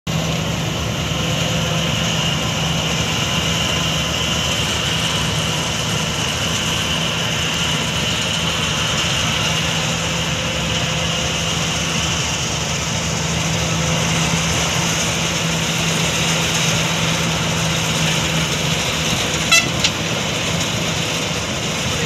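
Swaraj 8100 combine harvester running steadily as it cuts and threshes wheat: a constant engine and machinery drone with a steady hum and a high whine. Two short clicks near the end.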